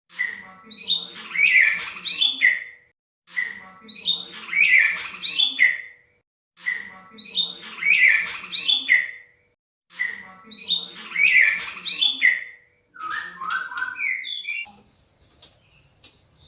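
White-rumped shama song with canary-style phrases: one phrase of rapid chirps and whistles is repeated four times, identically, with short pauses between. A shorter, different phrase follows and then the song fades out near the end. It is a looped lure recording for prompting a reluctant shama to sing.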